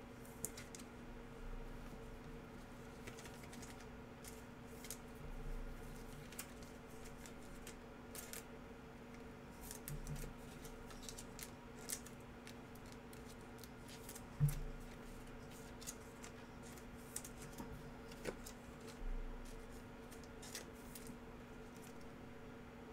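Trading card packs and cards being handled: scattered light clicks and snaps, with one louder knock about halfway through, over a steady low hum.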